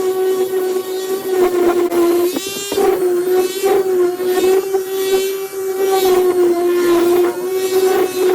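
Electric palm sander running with 80-grit paper on a wooden 2x4, a steady loud motor hum with a gritty scrubbing edge, its pitch sagging briefly a few times as the pad is pressed into the wood.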